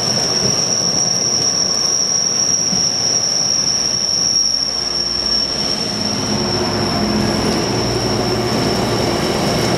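Container freight train rolling past, its wagons running steadily along the rails with a continuous high-pitched wheel squeal over the rumble.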